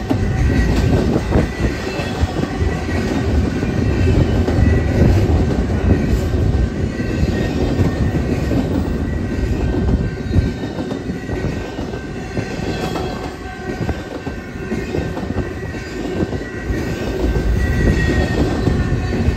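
Double-stack intermodal container train's well cars rolling past close by: a steady rumble of steel wheels on the rails, with clicking and faint high wheel squeals coming and going.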